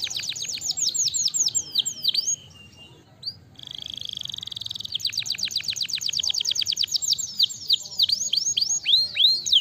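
Domestic canary singing: fast trills of falling whistled notes, a short lull about two and a half seconds in, then a buzzy even roll, and more rapid notes that slow into longer downward-sweeping whistles near the end.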